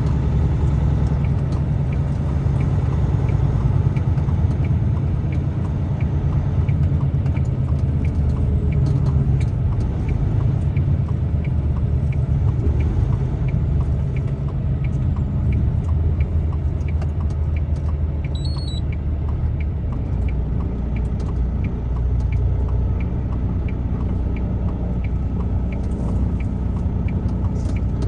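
Truck driving on the road, heard from inside the cab: a steady low rumble of engine and road noise, with a light, regular ticking about twice a second.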